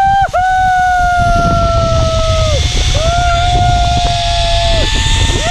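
A person's long held yells, three drawn-out whoops each falling off at the end, as a rider speeds down a zipline. Under them a low rushing rumble of wind and the trolley running on the cable builds from about a second in.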